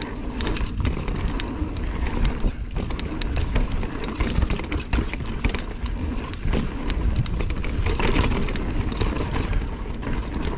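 Mountain bike riding fast down a dirt trail: a steady rush of tyre and wind noise with frequent rattles and knocks as the bike goes over rough ground.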